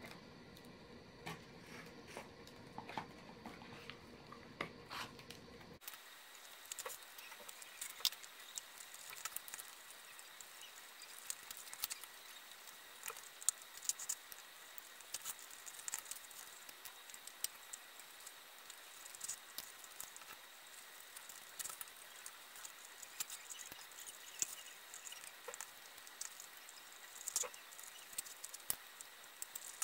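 Hand-stitching leather: thread drawn through the stitch holes of a small leather piece, with faint, scattered rasps and small clicks as it is pulled tight.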